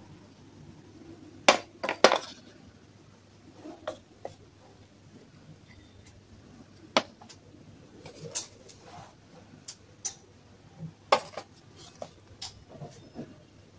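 Clay pots and utensils clinking and knocking together in scattered sharp clinks, the loudest a quick pair about a second and a half in, then single louder clinks about halfway through and near the end.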